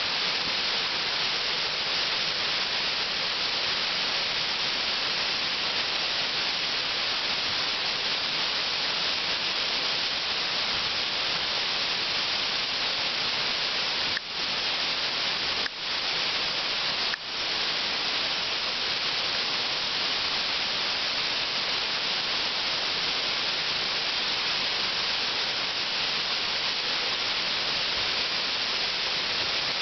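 Waterfall cascading down a rock face: a steady, loud rush of falling water, broken by three brief dropouts about halfway through.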